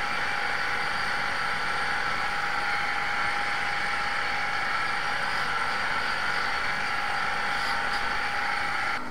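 Polishing spindle running a yellow abrasive wheel with a golf iron head held lightly against it: a steady whir under an even, high grinding hiss, dropping slightly near the end.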